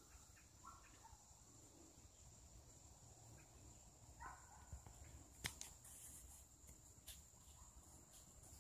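Faint outdoor ambience: a steady high-pitched insect drone, with a few short bird chirps near the start and about four seconds in. A couple of sharp clicks, about five and a half and seven seconds in.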